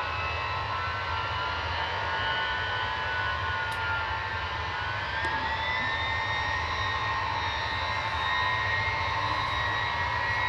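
Ilyushin Il-76's four Soloviev D-30KP turbofan engines running during a ground run-up: a steady jet roar with several whining tones. One whine dips slightly about four seconds in, then rises around five seconds, and the sound grows a little louder near the end.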